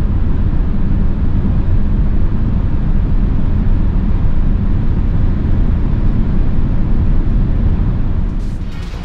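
Wind and tyre noise inside the cabin of a Nissan Ariya 87 kWh 2WD electric SUV accelerating at about 140 to 165 km/h: a steady, loud low rumble with no engine note. It fades near the end.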